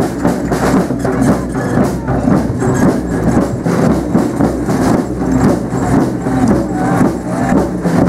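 A band of marching drums beating a steady rhythm, with voices of a crowd close by.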